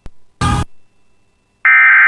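A click and a short burst of static, then about one and a half seconds in, an EAS SAME header data burst begins. It is a loud, rapid warbling digital tone, the coded header that opens an Emergency Alert System warning.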